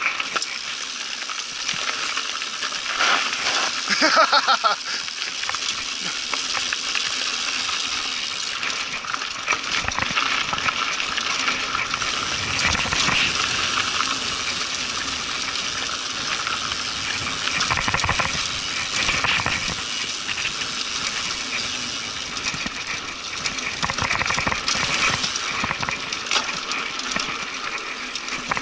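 Mountain bike ridden down a dirt singletrack, heard from a handlebar-mounted action camera: a steady rush of wind on the microphone over the clatter and rattle of the bike on the rough trail, louder for a moment about four seconds in.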